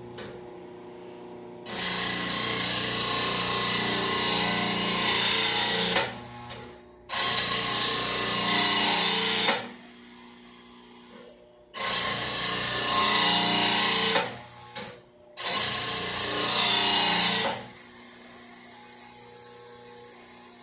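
Mower-blade grinder grinding a lawn mower blade's cutting edge in four passes of two to four seconds each. A harsh grinding rasp rises each time the blade meets the wheel, and the motor runs with a quieter steady hum between passes.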